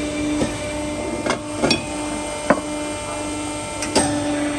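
Steel compression mould being closed by hand on a press bed: a handful of short metallic clanks and knocks as the lid is set on and shifted, over a steady machinery hum.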